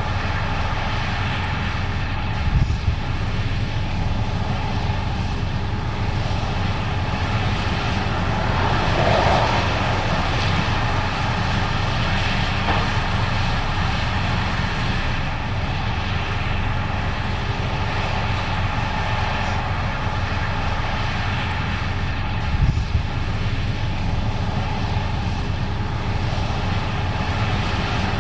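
Case IH 8250 Axial-Flow combine running steadily while harvesting corn: a continuous machine drone from the engine and threshing drive, with two brief low thumps.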